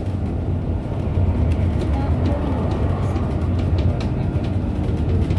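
Double-decker bus running, heard from inside the passenger cabin: a steady low engine and road rumble with a few light clicks.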